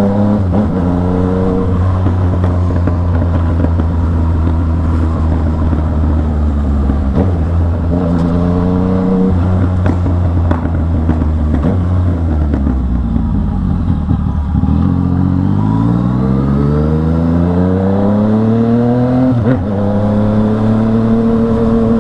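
Yamaha MT-09 three-cylinder motorcycle engine under way, running loud. Its pitch holds steady, climbs and drops several times as the throttle is opened and eased, with a long rising climb about two-thirds of the way through and a gear change just before the end.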